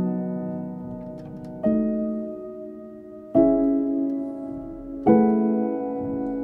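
Background piano music: slow chords struck about every second and a half to two seconds, four times, each left to ring and fade.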